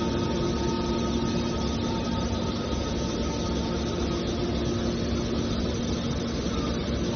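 Machine running steadily: a constant hum with a few held tones over an even rushing noise, as from the can baler's motor and hydraulic pump.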